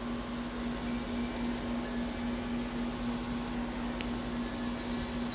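A steady mechanical hum on one constant low pitch over a background hiss, with a single faint click about four seconds in.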